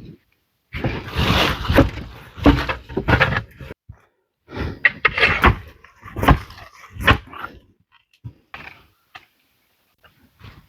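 A run of irregular knocks and thuds with short scraping or rustling noises between them, broken by brief silences.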